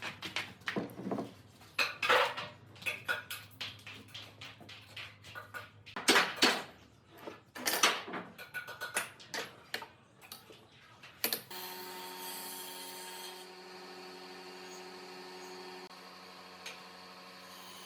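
Irregular clattering and knocking of wood and tools being handled, with several sharp knocks. About eleven seconds in this stops abruptly and a steady hum with several held tones takes over.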